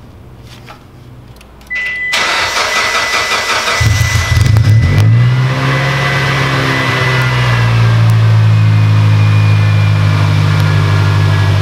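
2008 Mitsubishi Lancer's 2.0-litre MIVEC four-cylinder being cranked and started, on its first start on a swapped-in ECU: a steady high electronic warning tone comes on, the starter turns over about two seconds in, and the engine catches near four seconds, flares up briefly and settles into a steady idle.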